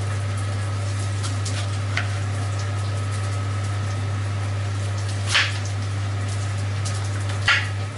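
Kitchen extractor hood running with a loud, steady low hum. A knife chops through a tomato onto a bamboo cutting board three times, the two louder cuts in the second half.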